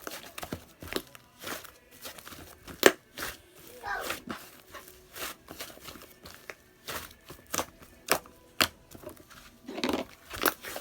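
Hands squishing and stretching a white fluffy, chewy slime, making irregular crackling pops and clicks with an occasional short squeak.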